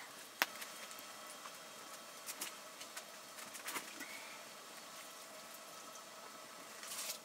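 Food simmering in a pot over the cooking fire: a steady soft hiss with a few light clicks, rising briefly to a louder rush of hiss near the end.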